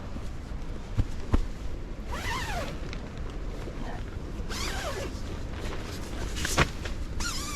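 Tent handling noises: three short rasping pulls, like a tent zipper being drawn, and a few sharp knocks.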